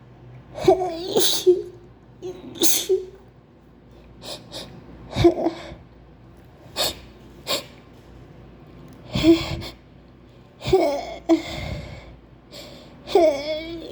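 A woman sneezing again and again in a fit, about ten sharp sneezes a second or so apart, with gasping breaths as they build.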